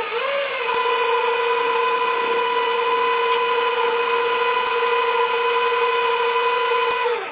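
CJ0618 mini lathe (a Sieg C2 copy) running during a facing pass across a brass bar: a steady, high-pitched motor and drive whine over a hiss. The whine wavers for about the first half second, then holds steady, and cuts off near the end.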